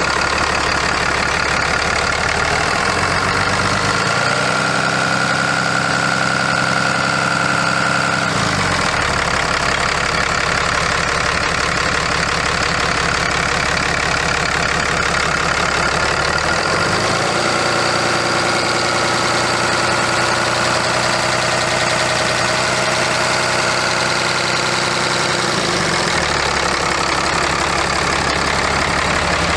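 Cummins 6.7L turbo-diesel in a 2009 Dodge 5500 running at idle. Its speed steps up twice and is held for several seconds each time, about three seconds in and again about halfway, before dropping back to idle. A high whine comes in with the raised speed.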